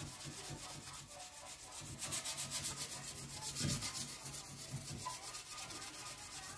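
Wet toothbrush scrubbing dried toothpaste on a glass pane: fast back-and-forth bristle strokes rubbing against the glass.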